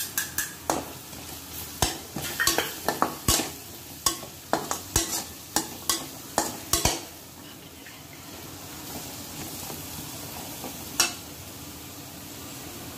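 Slotted steel spatula stirring and scraping vegetables and spices frying in oil in a non-stick kadai. There is a quick run of sharp clacks of metal on the pan for the first seven seconds or so, then a steady sizzle, with one more clack later on.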